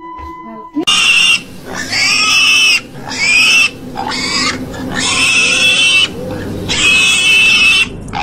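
Pig squealing: a run of loud, harsh squeals, each lasting under a second with short breaks between, starting about a second in.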